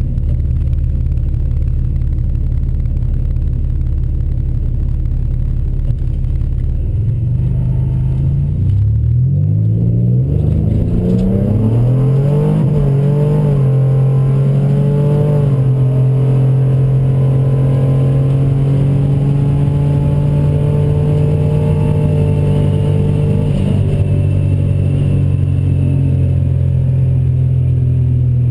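Turbocharged 4.0-litre V6 of a 2007 Ford Mustang running low and steady. About seven seconds in it climbs in pitch through several quick rises, then holds a steady, higher engine speed.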